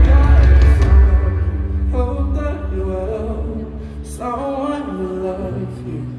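Live pop ballad from a singer and band through a concert PA, heard from the audience: heavy bass for about the first second, then held chords and a few drawn-out sung notes, growing steadily quieter as the song winds down.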